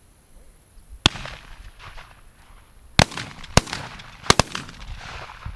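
Shotgun shots at doves: five bangs, a single one about a second in, then two spaced ones, then a quick pair near the end, each followed by a rolling echo.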